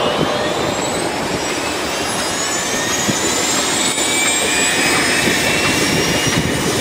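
Turbine helicopter running: a steady rush of engine and rotor noise with a high turbine whine that rises slowly in pitch.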